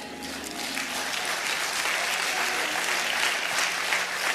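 Congregation applauding, the clapping building over the first second and then holding steady.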